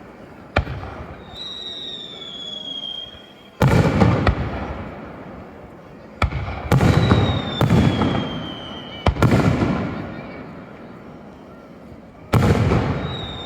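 Aerial firework shells bursting overhead: a series of sharp bangs, about eight of them, each trailing off in a long echoing rumble. Thin whistles falling slightly in pitch ring out after some of the bursts.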